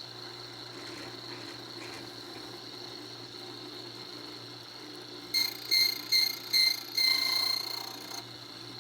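Key-cutting machine's motor running steadily, then the cutter biting into a key blank in four short cuts and a longer one near the end, cutting the decoded depths.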